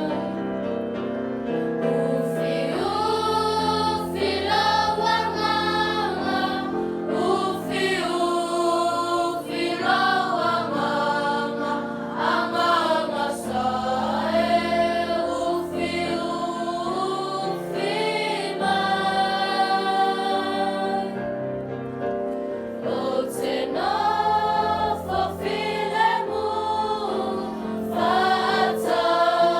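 Choir singing a hymn in several voices over sustained accompaniment chords.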